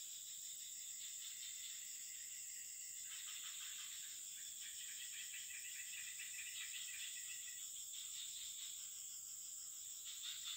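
Insect chorus: a steady high shrill drone, with a lower pulsing trill that swells about three seconds in and fades again near the end.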